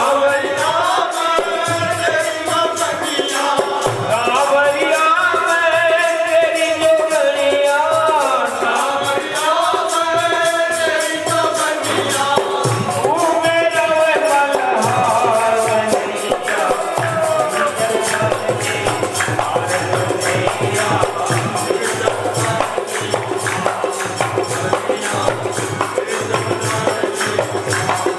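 Himachali bhajan kirtan music: a wavering melody line over steady jingling percussion in a fast, even rhythm. About 16 s in, the melody gives way to a denser, more steady instrumental texture.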